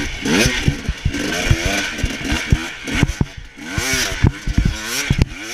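Dirt bike engine revving up and down over and over as it is ridden through sand, with frequent sharp knocks as the bike hits the bumps.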